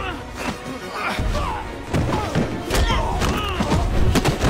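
Action music under a fight, with the thuds of kicks and blows landing: a few sharp hits, two of them close together near the end.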